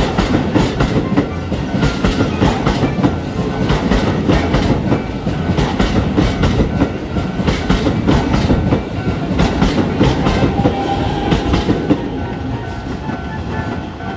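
An electric commuter train running through a level crossing, its wheels clattering over the rail joints in a dense, continuous run, over a heavy rumble. Level-crossing warning bells ring steadily underneath and come through more clearly near the end, as the train noise eases a little.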